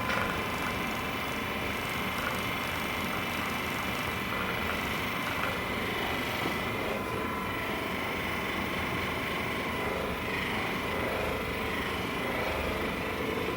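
A small electric motor running steadily with an even whirring buzz and a constant high tone, unchanged throughout.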